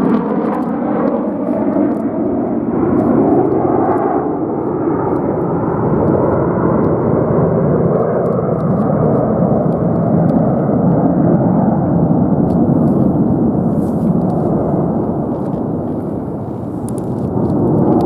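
F/A-18 Super Hornet fighter jets flying past, their twin turbofan engines making a loud, steady rushing roar with a sweeping, phasing sound in the first second as they pass. The higher part of the noise falls away about four seconds in as the jets move off, and it swells again near the end.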